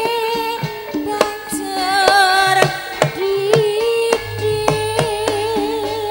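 Live Javanese gamelan music with a female sinden singing a wavering melody through a microphone over held metallophone notes and sharp kendang drum strokes. A deep held gong tone comes in about four seconds in.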